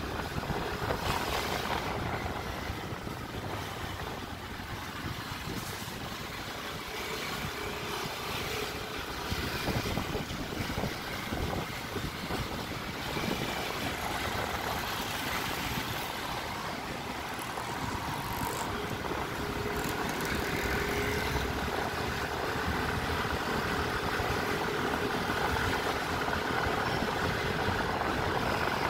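Vehicle engine and road traffic, heard from a vehicle moving through city traffic. Over the last ten seconds an engine note rises slowly in pitch and the road noise grows louder as it picks up speed.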